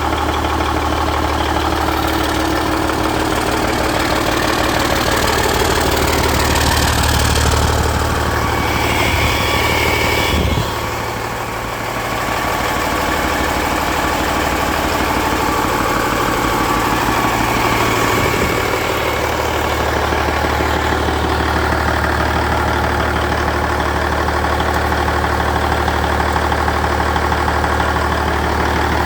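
1998 Cummins N14 Celect Plus 14-litre inline-six diesel engine running on a test stand, mostly at a steady idle. Its note changes for several seconds around the middle, then it settles back to the same steady running.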